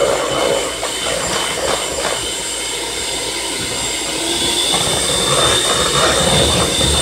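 Electric hand mixer running, beating a thick peanut butter, egg and cream cheese batter. About four seconds in, a higher steady whine comes in as the beaters are lifted out of the bowl.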